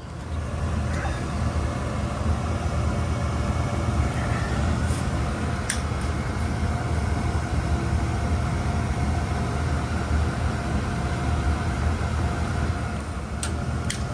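York gas furnace's draft inducer motor starting abruptly and running with a loud, steady hum, with a few sharp clicks.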